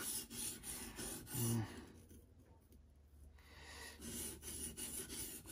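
Scandi-ground Mora knife blade stroked back and forth across a wet whetstone: a rhythmic scraping rasp that stops for about two seconds in the middle, then picks up again.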